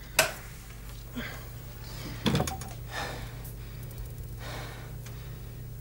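A sharp knock just after the start and a heavier thump about two seconds in, with gasping breaths and rustling between them, over a low steady hum.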